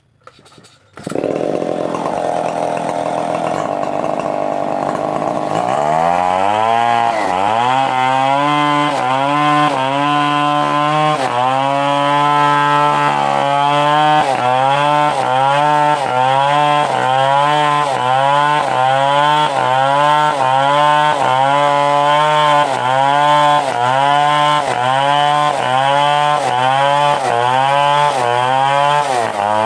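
Stihl 070 two-stroke chainsaw, coming in suddenly about a second in and running loud. From about six seconds in its engine pitch dips and recovers roughly once a second, as the saw works through a coconut palm trunk.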